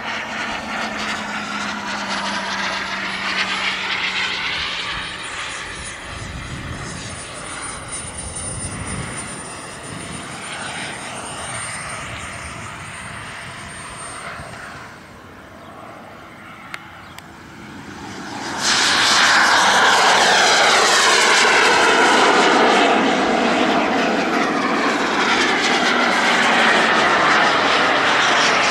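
Turbine engines of radio-controlled model jets flying by: a steady jet whine whose pitch slides down as a plane passes. About two-thirds of the way in the sound suddenly becomes much louder and stays loud.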